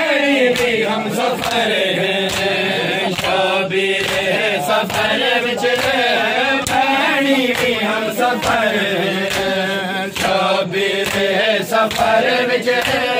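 A group of men chanting a Punjabi noha, a mourning lament, with a steady beat of sharp slaps from palms striking bare chests in matam.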